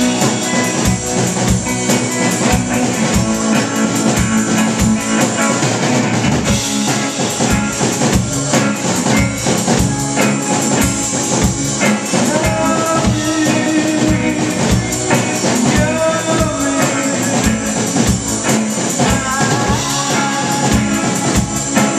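Live rock band playing: a drum kit beating a steady rhythm under electric guitars, with a man's sung vocal over the top in places.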